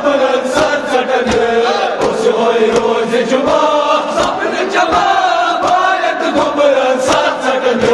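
A group of men chanting a Kashmiri marsiya (mourning lament) in unison, with rhythmic chest-beating (matam) as open-handed slaps, about one or two a second, over the voices.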